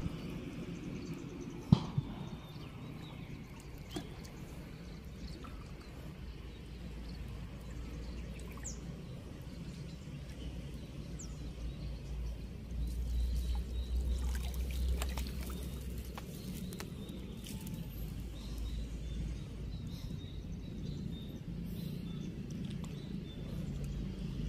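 Shallow water splashing and trickling softly as hands work through a submerged cast net, feeling for trapped fish. A sharp knock just under two seconds in is the loudest sound.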